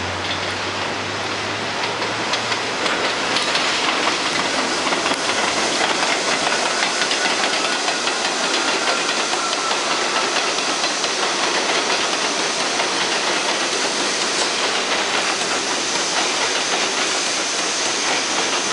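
New York City Subway R62A train running through an elevated station. The steady rush of steel wheels on rails swells as the cars come alongside the platform, about three seconds in, and then holds steady, with faint thin wheel squeals over it.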